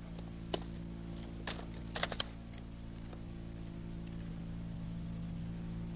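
A few faint, sharp metallic clicks in the first couple of seconds, the last three in quick succession, as a prone shooter handles and readies a Browning Automatic Rifle, over a steady low hum. No shots are fired.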